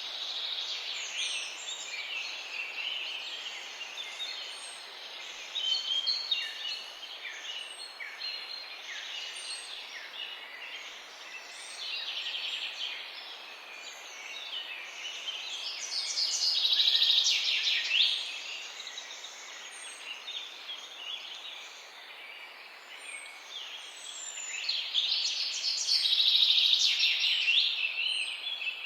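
Morning chorus of several wild birds chirping and singing over one another in quick, overlapping trills. It swells louder about halfway through and again near the end, and a thin high call repeats every second or two.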